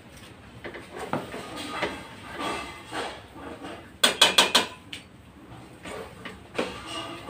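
Spatula stirring and scraping thick, sticky biko (glutinous rice in coconut milk and brown sugar) in a stainless steel pot, the mixture gummy and sticking to the bottom. About four seconds in comes a quick run of five sharp knocks of the spatula against the pot, the loudest sound.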